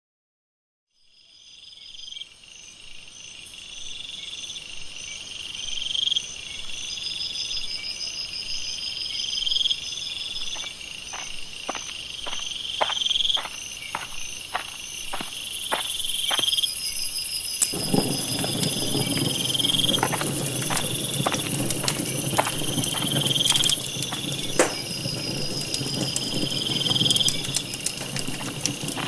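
Night ambience fading in: crickets chirping in a regular repeating pattern over high insect buzz. From about ten seconds in a campfire starts crackling with sharp pops, and from about eighteen seconds the steady rush of burning flames joins in under the crackles.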